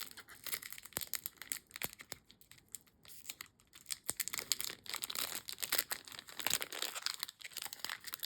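Foil trading-card booster pack being torn open and crinkled, with many short crackles and rustles, quieter for a moment about two seconds in.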